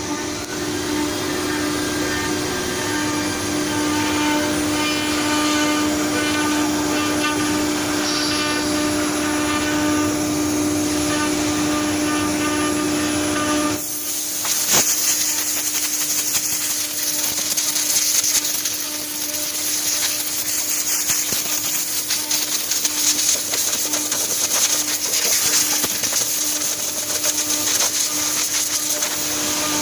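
CNC wood router running with a steady hum. About halfway through, the sound changes to a harsher, hissier noise.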